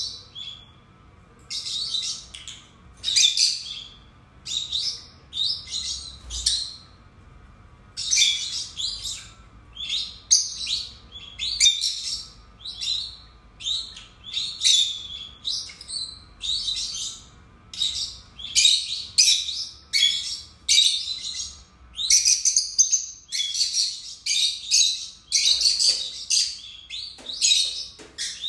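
Peach-faced lovebirds calling: shrill chirps and squeaks in quick clusters about every second, growing into near-continuous chatter in the second half.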